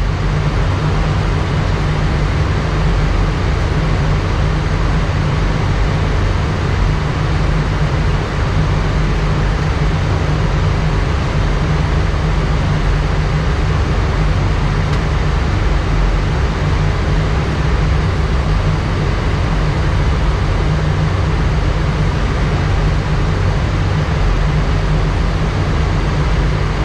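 Steady flight-deck noise of an Airbus A319 descending at idle thrust: an unchanging rush of air over the cockpit, heaviest in a low rumble with a hiss above it.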